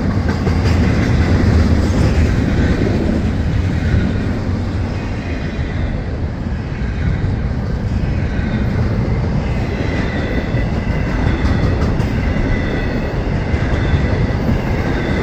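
Intermodal freight cars of a Florida East Coast Railway train rolling past: a steady, loud rumble of steel wheels on the rails.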